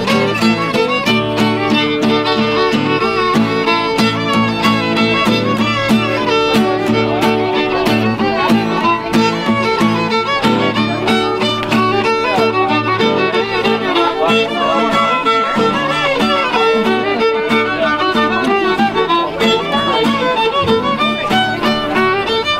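Fiddle music with a steady beat.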